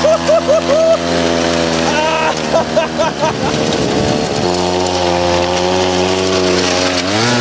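Two-stroke chainsaw engine driving a motorized drift trike, its throttle blipped rapidly several times in the first second and again about two seconds in. It stumbles briefly around four seconds in, then runs steadily at high revs, rising near the end.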